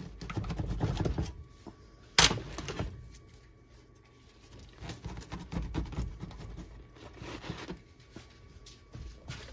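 Dishes and utensils being handled, clattering in bouts, with one sharp knock about two seconds in.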